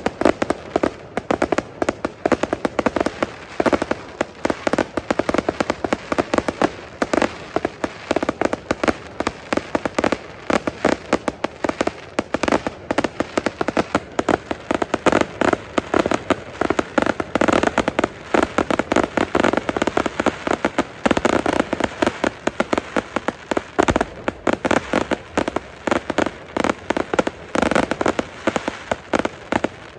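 Fireworks display: a dense, unbroken stream of sharp crackling pops, many each second.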